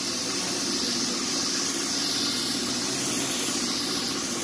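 Compressed-air spray gun hissing steadily as it atomizes spray-chrome solution into a fine mist. A steady low hum runs underneath.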